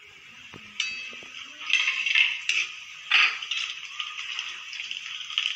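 Whole spices dropped into hot oil in a wok, sizzling and crackling as they temper, with louder spatters around two and three seconds in. The sizzle starts about a second in.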